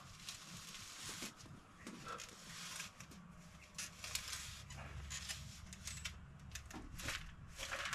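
Hand-held planting tool cutting holes in damp garden soil: a run of short, uneven scrapes and crunches as it is worked into the ground and pulled out.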